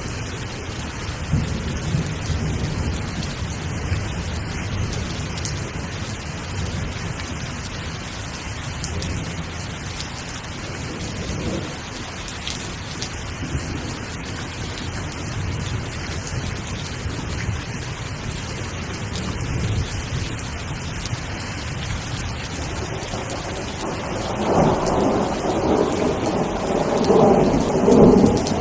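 Steady rain falling, with low rolls of thunder under it. A louder, fuller thunderclap rolls in about 24 seconds in and peaks near the end.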